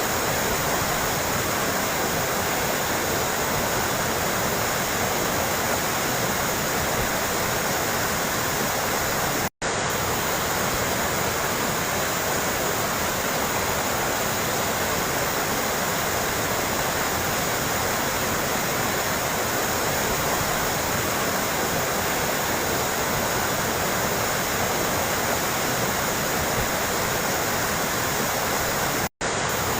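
Running water splashing and trickling steadily, like a small stream or fountain. It cuts out for an instant twice: about a third of the way in and again near the end.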